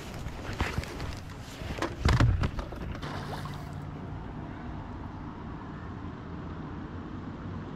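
Scuffing and knocking on shoreline rocks as someone moves over them, with one heavy thump about two seconds in. From about four seconds in, a steady low hum over a faint wash of water and wind.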